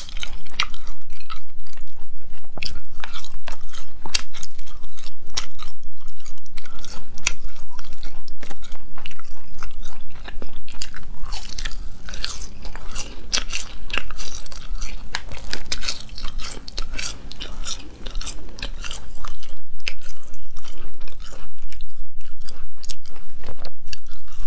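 Close-miked biting and chewing of spicy gluten sheets (la pian, a flat latiao snack), with rapid mouth clicks throughout, thinning out somewhat in the middle.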